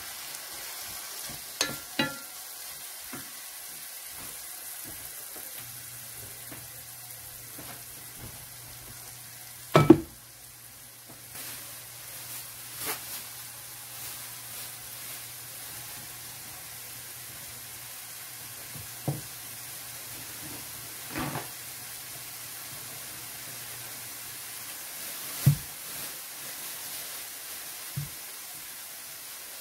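Diced tomatoes and onion sizzling in a ceramic-coated frying pan, with a wooden spoon knocking on the pan now and then; the loudest knock comes about ten seconds in.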